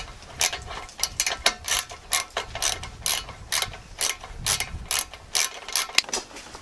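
Ratchet socket wrench clicking repeatedly as bolts on a small engine are tightened, in quick even strokes of about three or four a second.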